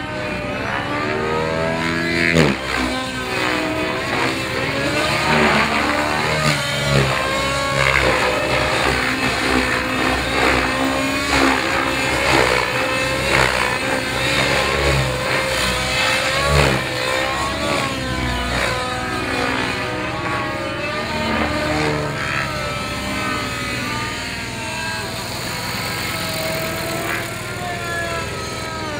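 Radio-controlled model helicopter with a nitro glow engine, YS-powered, flying aerobatics. The engine and rotor pitch keep rising and falling through the manoeuvres, with a sharp falling sweep about two seconds in.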